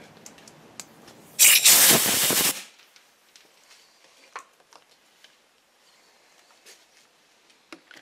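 A blast of air lasting just over a second, blowing drill chips out of a freshly drilled hole in a cast iron engine block before it is tapped. A few faint clicks follow.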